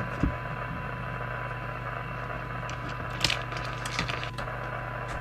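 Audio from a CB radio's loudspeaker on receive: steady hiss with a thin steady 1 kHz test tone from the signal generator in it, over a low hum. A few short clicks come in a little past halfway as test leads are handled.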